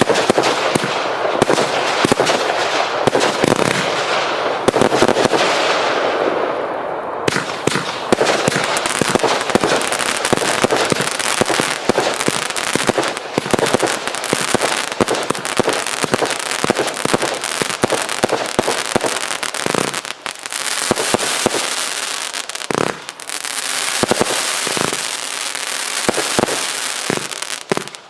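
Hallmark Fireworks' Event Horizon, a 400-shot compound of display rockets, firing in rapid succession: a dense, continuous stream of launches and bursts with crackling throughout.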